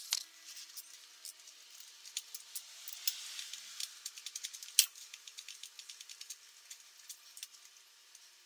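Ratchet wrench clicking in quick, uneven runs of small clicks as it backs out an 8 mm radiator bracket bolt, with one sharper click about five seconds in.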